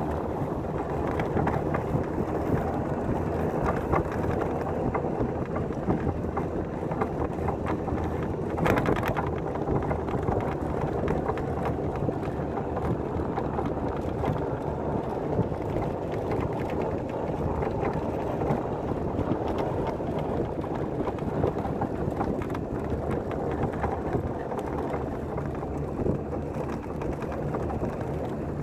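Golf cart driving on a snow-covered road: a steady running noise from the cart and its tyres, with wind on the microphone. A brief sharp sound stands out about nine seconds in.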